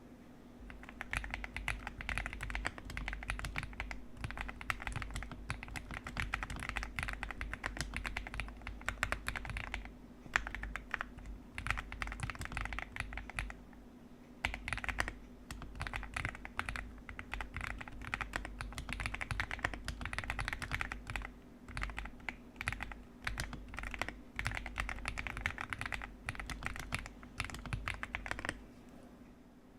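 MCHOSE Z75S mechanical keyboard being typed on: fast, continuous keystroke clacks in long runs, with short pauses about ten, fourteen and twenty-one seconds in and again near the end.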